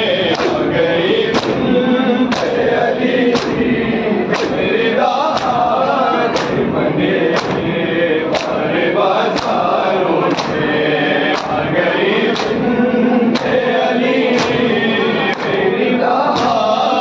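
A group of men chanting a noha in chorus, with the sharp slaps of hands striking chests in unison (matam) about once a second.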